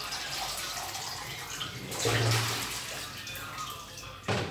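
Water pouring and splashing from a plastic colander into a plastic basin as noodles are drained, loudest about two seconds in. A sharp knock near the end.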